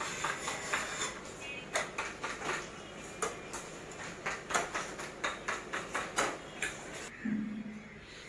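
Metal spatula scraping and clinking against a ceramic bowl while scooping out cream to ice a cake: an irregular run of sharp clicks and scrapes, about two or three a second, that stops about seven seconds in.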